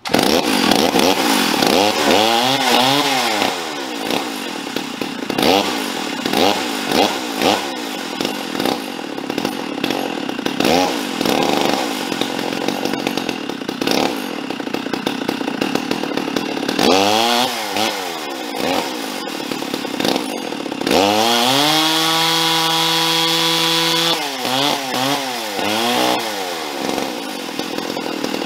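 Ported Stihl MS460 Magnum chainsaw with a bark box and gutted muffler running on a dyno, revved up and down over and over. About two-thirds of the way in it climbs to a steady high pitch for a few seconds, then drops back. It is running poorly, which the crew take for a carburetor problem.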